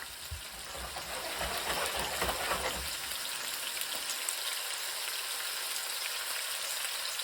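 Food frying: a steady sizzling hiss, with a few soft low knocks in the first few seconds.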